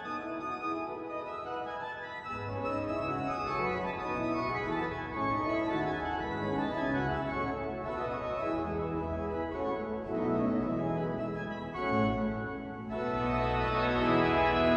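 Pipe organ playing a closing voluntary: sustained chords, with deep pedal notes coming in about two seconds in and the sound growing fuller and louder near the end.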